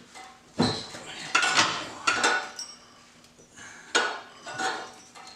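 Metal hand tools and parts clinking and clanking against each other in irregular sharp knocks, mostly in the first couple of seconds and again about four seconds in.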